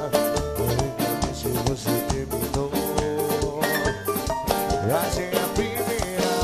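Lambadão band music in an instrumental passage without singing: a fast, steady drum beat under bass and a melody line, with a few rising slides about five seconds in.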